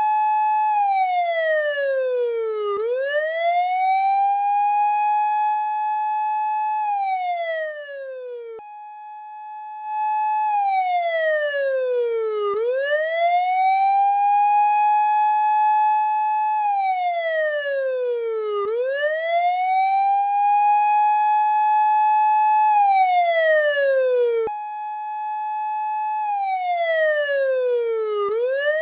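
Police car siren wailing: each cycle holds a high note, slides down over about two seconds, then swoops quickly back up, repeating every six seconds or so. The sweep breaks off and restarts abruptly twice, once after a brief dip in loudness.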